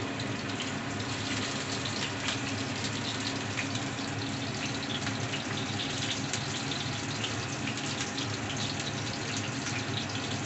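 Spice-coated Bombay duck (lote fish) pieces frying in shallow oil heated until smoking in a nonstick kadai: a steady sizzle with scattered small crackles and pops.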